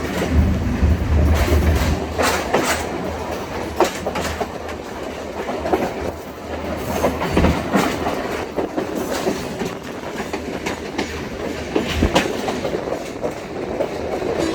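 Train running along the track: a steady low rumble with irregular clacks of the wheels over rail joints, a few of them sharp.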